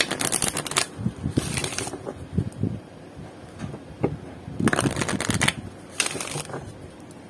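An oracle card deck being riffle-shuffled by hand and bridged, the cards flicking against each other in four quick bursts of fast clicking.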